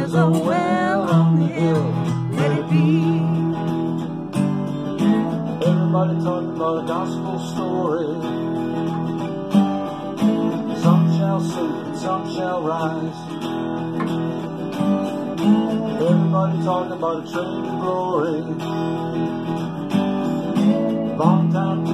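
Instrumental blues guitar break: a slide guitar plays gliding, bending notes over a strummed rhythm guitar.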